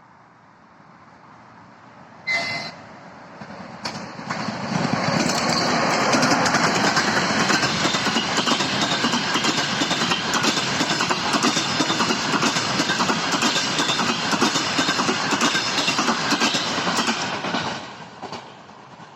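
ChS2K electric locomotive with a passenger train: a brief horn signal about two seconds in, then the train passes close by for about fourteen seconds, wheels clacking over the rail joints, and fades away near the end.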